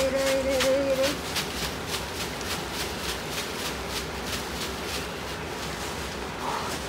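A bundle of leaves swished and shaken over a person's head in a shamanic leaf cleansing (limpieza), a few rustling strokes a second that fade out after about four seconds. A woman's voice holds one low sung note for about the first second.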